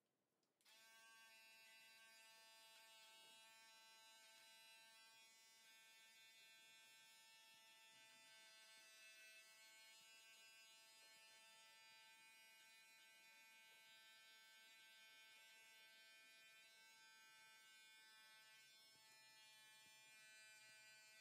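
Philips BT 5200 electric beard trimmer running and cutting stubble on the neck and jaw, a faint steady buzz that starts about a second in.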